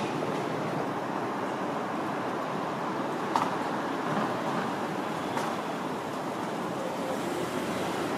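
Steady city street noise of distant traffic, with two short clicks about three and a half and five and a half seconds in.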